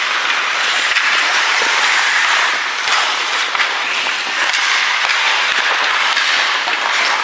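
Crowd of spectators clapping and cheering in a hockey rink: a steady, loud din dotted with many sharp claps.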